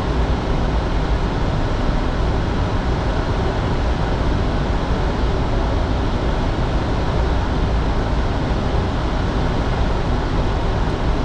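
Steady cockpit noise of a business jet in the climb: airflow and engine noise as an even, unbroken hiss and rumble, strongest at the low end.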